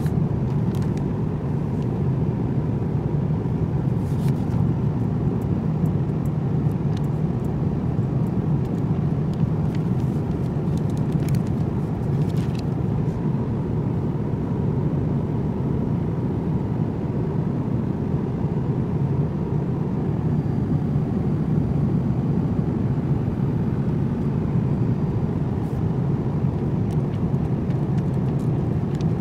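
Steady cabin noise inside a Boeing 787-9 airliner: an even low rumble of airflow and engines, with a few faint clicks.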